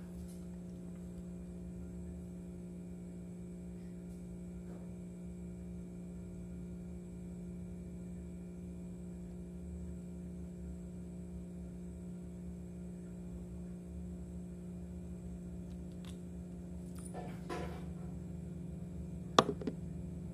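A steady low hum throughout, with a few small clicks near the end from small fishing reel parts being handled, the sharpest a single click just before the end.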